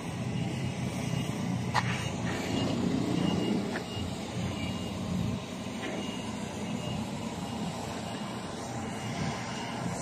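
Steady low rumble of traffic and vehicle engines, with a few faint clicks.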